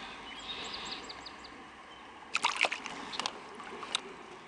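Water splashing as a hooked largemouth bass is lifted out beside a kayak: a quick cluster of sharp splashes about two seconds in, then a couple of single splashes or drips. A bird chirps a short run of faint high notes near the start.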